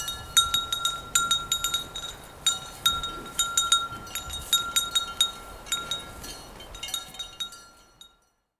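Cowbells on a herd of grazing cows clanking irregularly as the animals move, several strikes a second, each ringing briefly at the same pitch. Faint low rustling lies beneath, and the bells fade out near the end.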